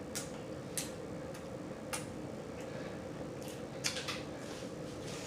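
Mouth sounds of a person eating a cheeseburger and fries: several short, sharp wet smacks at irregular intervals over a steady background hum.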